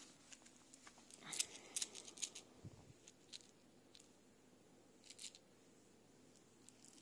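Faint scratchy rustles of a kitten's paws and claws shifting on a nylon cat-toy cover, in a cluster about a second in and again briefly near five seconds.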